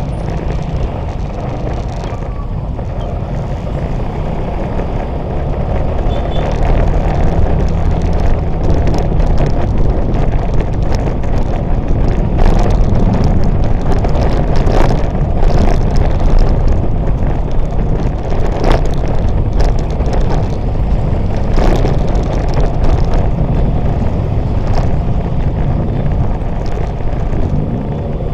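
Motor scooter ride: wind rushing over the camera's microphone over the scooter's engine and tyre noise, a dense low rumble that grows louder about six seconds in.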